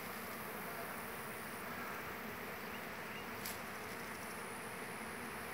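Steady hum of many honeybees flying around the hives of a mobile apiary trailer, the colonies actively working.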